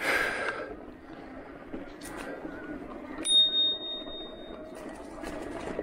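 Handlebar-mounted bicycle bell on an e-mountain bike struck once about three seconds in, giving a clear high ding that rings on for over a second before fading. A short rush of noise comes at the very start, and steady riding noise runs underneath.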